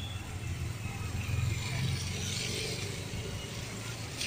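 Street traffic: a motor vehicle's engine running past with tyre noise on the road, loudest about a second and a half in.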